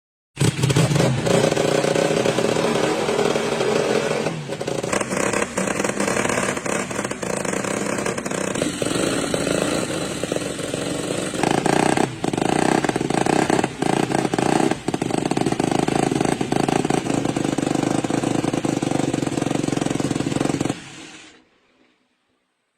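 Small engine running loudly, its note shifting a few times, then cutting off abruptly near the end.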